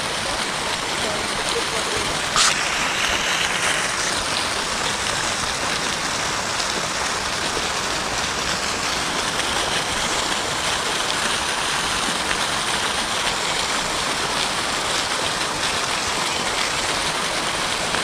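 Several fountain jets spraying up and splashing back into a shallow ornamental pool: a steady rush of falling water. There is one brief click about two and a half seconds in.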